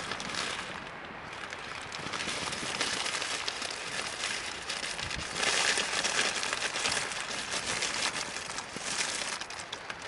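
Plastic bag crinkling and rustling as dry pasta is shaken out of it into a pot of boiling water, louder about halfway through.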